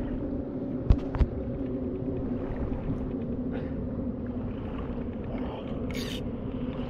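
Steady low engine hum, with two sharp clicks about a second in and a brief hiss near the end.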